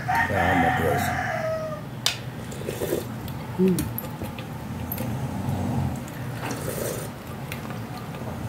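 A rooster crows once at the start, a long call that drops in pitch as it ends. After it, spoons clink and scrape a few times against plates and a glass bowl.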